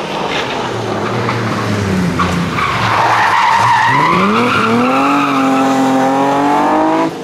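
Rally car coming off the throttle into a corner with its tyres squealing, about two seconds in. From about four seconds it revs up hard, accelerating away and holding high revs.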